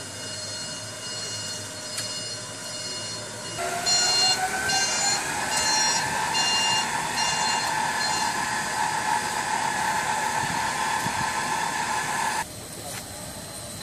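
BYD electric forklift's traction motor whining, first steady, then rising in pitch as the truck accelerates and holding a steady high whine. A series of short, evenly spaced beeps sounds over the first part of the acceleration, and the sound drops away abruptly near the end.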